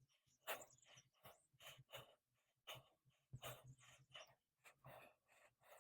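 Near silence with faint, irregular short scratches: a utility knife slicing the excess window-screen mesh along the door frame's rubber spline.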